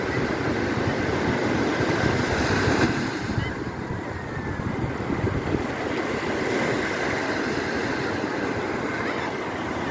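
Ocean surf breaking and washing up the sand, a continuous rush of noise, with wind buffeting the microphone. The rush eases somewhat about three seconds in.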